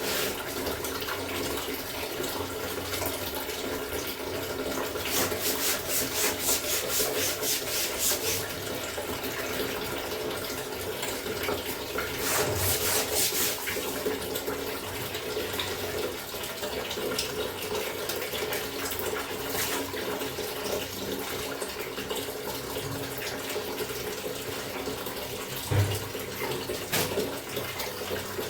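Water running from a tap into a basin while clothes are washed by hand, with bursts of rubbing and sloshing.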